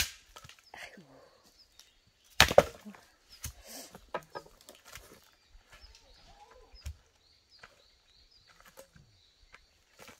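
An axe chopping firewood on a chopping block: one sharp, loud chop right at the start and another loud double knock about two and a half seconds in, then lighter wooden knocks as split pieces are handled. Small birds chirp faintly throughout.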